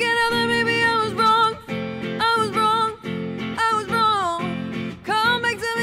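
A woman singing a slow pop song live, in held phrases with pitch slides, over a clean electric guitar accompaniment.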